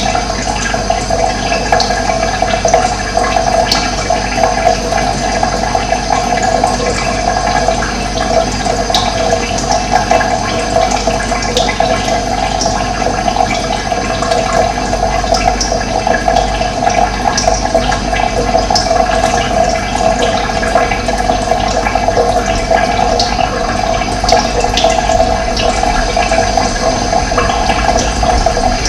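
Running water, a steady rushing flow, with short high bird chirps scattered through it.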